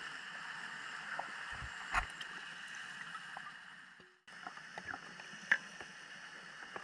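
Underwater ambience through a camera housing: a steady hiss with scattered faint clicks and a sharper knock about two seconds in. The sound cuts out briefly just after four seconds, then the hiss and clicks go on.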